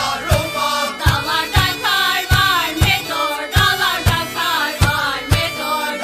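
Background music with a steady drum beat under a wavering, chant-like melody.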